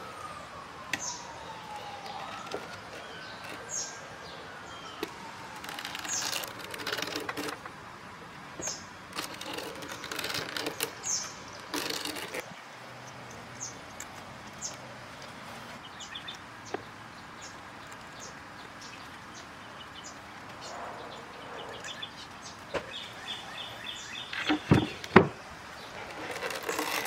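Pre-woven rattan chair cane being pressed into a wooden seat frame by hand: light rustling and scraping of the cane sheet, with birds chirping and a few sharp knocks near the end.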